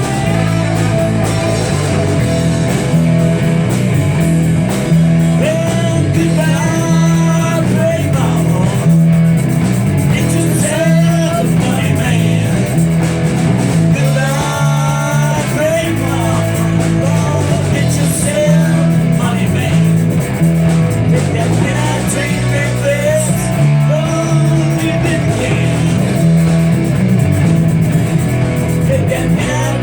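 Live rock band playing: electric guitar, bass and drums, with singing over them.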